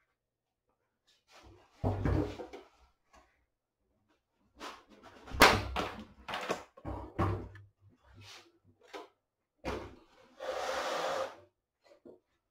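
Knocks and thuds of a flat-screen TV's sheet-metal backlight chassis being handled and shifted on a wooden workbench, the loudest about five and a half seconds in, then about a second of scraping as it is pulled across the board.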